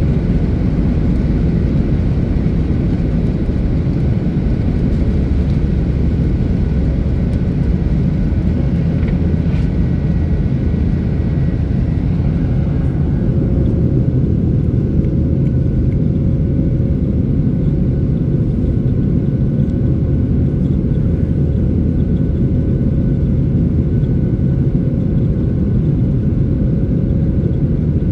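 Airliner cabin noise heard from a passenger seat in flight: a loud, steady low rumble of engines and airflow with a faint steady whine above it. About halfway through, the hiss eases slightly and a steady hum becomes clearer.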